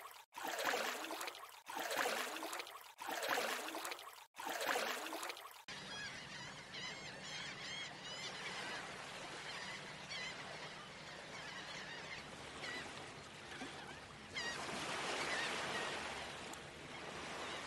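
Water sound effects: about four splashing surges roughly a second and a half apart. Then a waterside ambience of running water with waterfowl calling, the water growing louder near the end.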